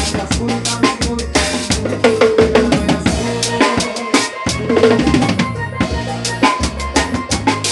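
Recorded music with a busy drum kit beat: bass drum, snare and rimshots over a steady bass line, with a short break in the drums about four seconds in.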